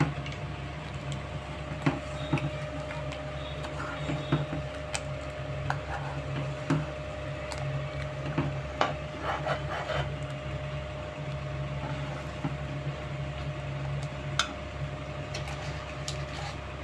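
Steady low mechanical hum in a kitchen, with scattered light clicks and taps over it.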